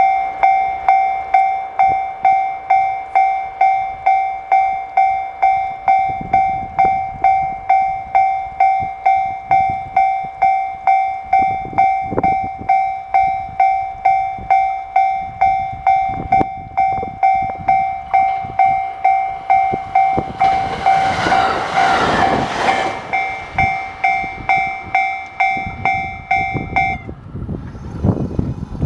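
Japanese railway level-crossing warning bell ringing a steady high electronic ding about twice a second. A JR West 521 series electric train passes about twenty seconds in with a loud rush of wheel and wind noise. The bell stops near the end as the crossing clears.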